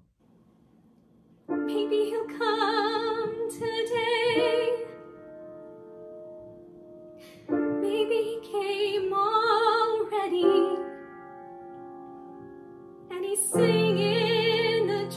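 Soprano singing a musical-theatre song with vibrato over grand piano accompaniment. Three sung phrases, each followed by held piano chords, after a brief near-silent pause at the start.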